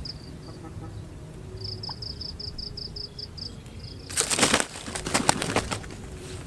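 A junglefowl caught in a spring snare, flapping its wings hard in two bouts about four and five seconds in. Earlier, a faint high chirp repeats about six times a second in the background.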